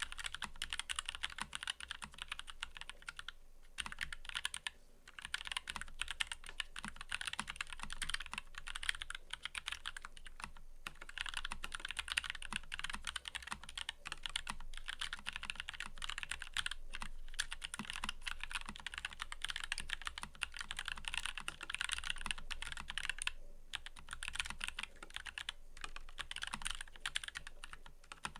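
Fast, continuous typing on a mechanical keyboard: a dense run of key clicks with a few brief pauses.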